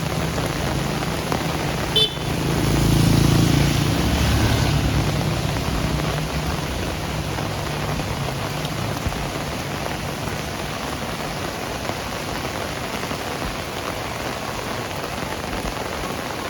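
Steady heavy rain falling on hard surfaces, with a sharp click about two seconds in. Just after it a vehicle passes on the wet road, swelling and fading over a few seconds.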